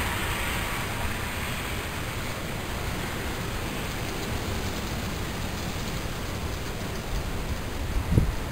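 Steady windy hiss of a snowstorm, with a couple of low gusts buffeting the microphone near the end.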